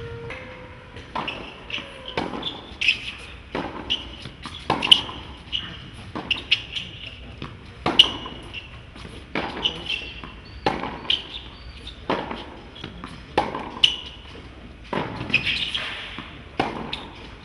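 Tennis rally on a hard court: a steady string of sharp pops from rackets striking the ball and the ball bouncing, one every half second to second.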